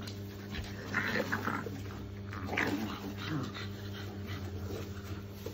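Shar pei puppies play-fighting, giving short high-pitched whimpers and yips about a second in and again around two and a half seconds in.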